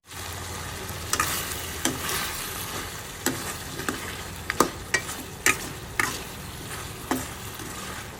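Marinated chicken frying in oil in a kadai, a steady sizzle as the water it has released cooks off. A spatula scrapes and knocks against the pan every second or so as it is stirred.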